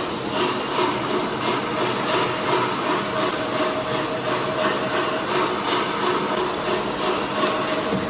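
CNC router running its automatic tool-length measurement at the tool setter: a steady hiss with two humming tones underneath and a faint regular pulse about twice a second.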